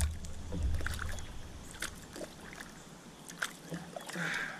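A canoe being paddled: a few light knocks of the paddle against the hull and a short splash of a stroke near the end, over a low rumble at first.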